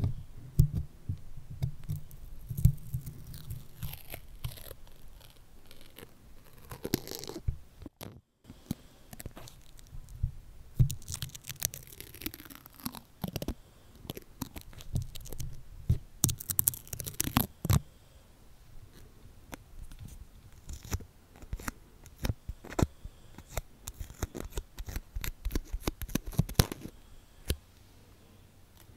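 Stickers being pressed onto and peeled off a microphone right at its surface. The sound is crackly, tearing peels and scratching, broken by many sharp clicks and taps, with a low handling rumble.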